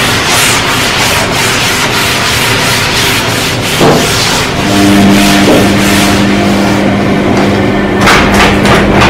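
A cloth rubbing back and forth across a laminate coffee tabletop in quick strokes, over a steady low hum.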